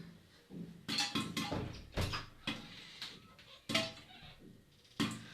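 Popcorn kernels popping inside a covered sufuria cooking pot. Several sharp, irregular pops and knocks against the pot and lid.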